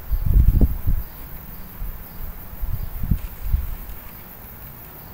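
Outdoor insects chirping steadily, with irregular low rumbling bumps on the microphone, loudest in the first second and again around three seconds in.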